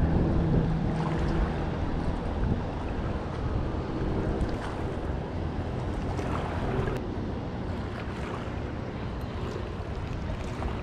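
Wind buffeting the microphone over the steady wash of small waves on a shallow reef.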